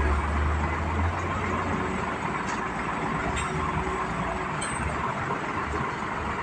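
Steady vehicle engine and road noise, with a low rumble that fades about a second and a half in.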